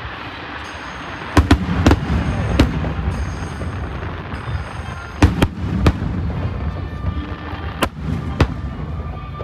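Aerial firework shells bursting in a large display: sharp bangs in quick groups, about a second and a half in, around five to six seconds in, and near the end, over a steady rumble and crackle.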